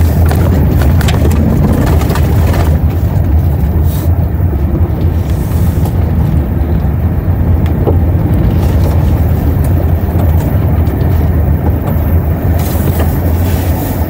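Car moving slowly over a rough gravel and dirt surface, heard from inside: a steady low rumble of engine and tyres, with scattered faint clicks.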